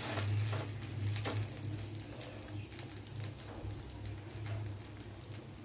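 Oats chapatti batter, topped with a little oil, sizzling gently in a non-stick frying pan, with many small irregular crackles and pops over a steady low hum.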